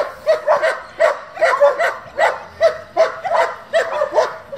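German Shepherd Dog barking rapidly and repeatedly, two to three sharp, yelping barks a second: the excited barking of a young dog being worked up by a helper in bite training.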